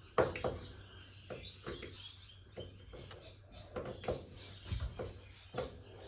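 Irregular small clicks, taps and faint squeaks of screwdrivers being fitted to and worked on the screws in a TV's plastic back cover, with no motor running.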